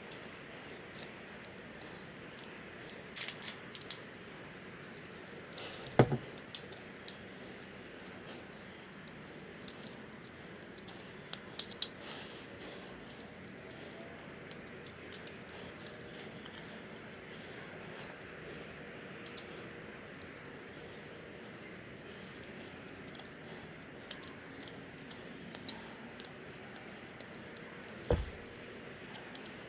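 Sporadic small metallic clicks and taps from a VS Racing 50mm wastegate housing and its parts being handled and worked by hand while its burrs are cleaned out. A louder knock comes about six seconds in, and another thud near the end.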